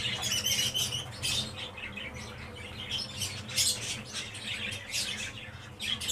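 Small cage birds chirping repeatedly in quick, high notes, over a faint steady low hum.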